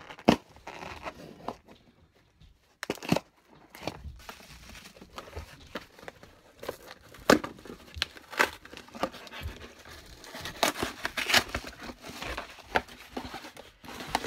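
Small cardboard shipping box being torn open by hand: irregular tearing, rustling and scraping of the cardboard, broken by sharp cracks as the flaps are pulled apart.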